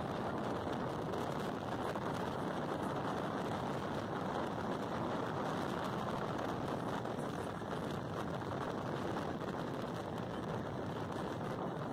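Steady road and wind noise inside a moving minibus, an even rush with no breaks.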